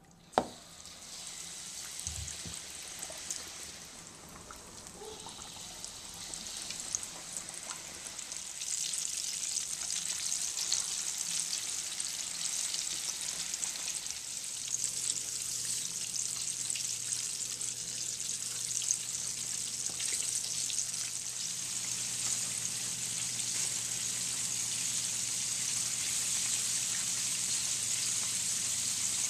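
Tempura-battered chicken wings frying in hot oil in a wok: a crackling sizzle that starts quietly as a wing goes in and grows louder over the first eight seconds or so, then holds steady. A single sharp knock comes just after the start.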